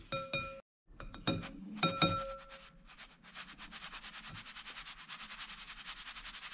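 A spoon clinks against a glass bowl several times and the glass rings. Then, from about three seconds in, a mesh kitchen sieve is shaken rapidly and steadily, about eight strokes a second, with a sifting rasp as flour passes through and leaves the rice behind.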